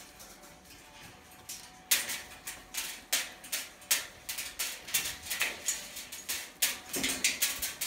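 Irregular sharp clicks and taps of a Rubygold macaw's beak and claws on its metal cage as it climbs onto the top, starting about two seconds in at roughly two or three a second, with a heavier knock near the end.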